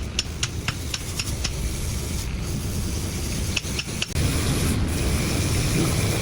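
A quick run of light metallic clinks with scraping and rubbing noise, a few more clinks about three and a half seconds in, then a steadier low rumbling noise from about four seconds in.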